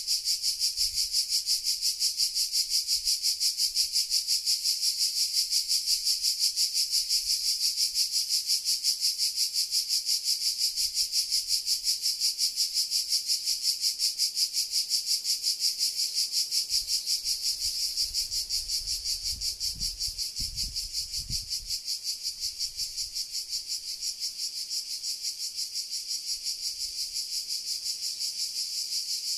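Cicadas singing in a steady chorus, a high buzz that pulses evenly several times a second. A faint low rumble comes in about two-thirds of the way through.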